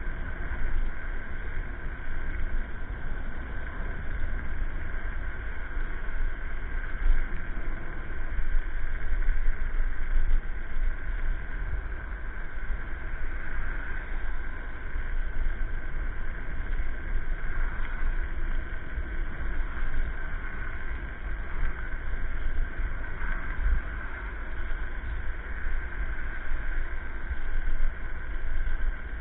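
Steady rushing wind noise and road rumble from an electric scooter being ridden along a street, buffeting the microphone and rising and falling in loudness.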